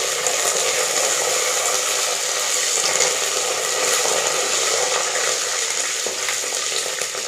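Curry leaves sizzling in hot oil along with dried red chillies and mustard seeds in a clay pot. A loud, steady sizzle that eases slightly near the end.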